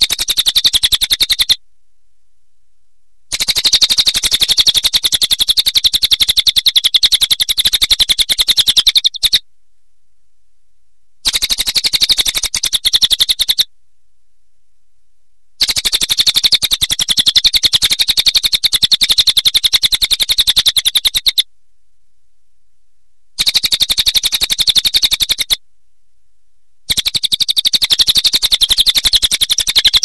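Crested jay (cililin) calls: a fast, rattling chatter of rapid high notes, coming in six bursts of two to six seconds each with short silent gaps between them.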